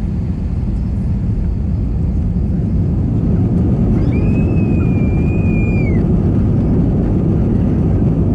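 Airbus A321 engines and rolling gear during the takeoff roll, a loud steady low rumble heard from inside the cabin over the wing that grows slightly louder a few seconds in. A child screams once for about two seconds midway, one high held cry.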